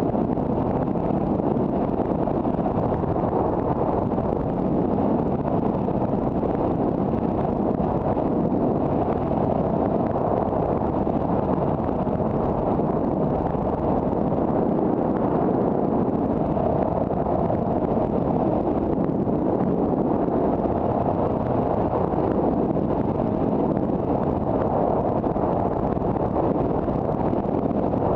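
Steady road and engine noise of a car driving, heard from inside the car, with a faint steady hum running through it.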